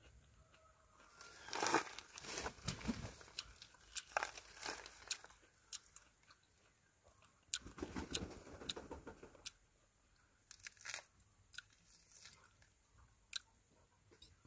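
A person chewing and eating juicy dekopon (Hallabong) mandarin, with irregular wet mouth clicks and crackles, and the thick rind and segments being torn apart by hand.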